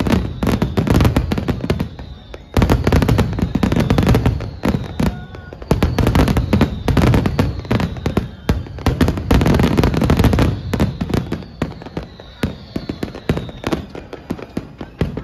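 Large fireworks display: dense, rapid bangs and crackles with deep booms coming in waves, along with faint falling whistles.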